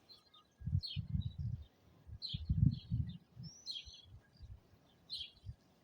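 Small birds chirping and twittering throughout, over irregular low rumbling thumps that are loudest in the first half.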